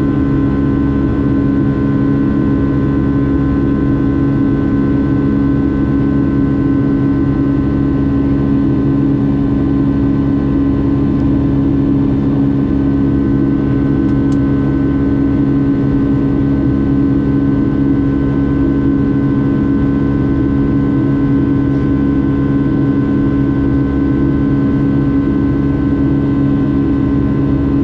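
Boeing 757-300 airliner in flight: steady engine and airflow noise inside the cabin, an even rushing sound with several constant hum tones running through it.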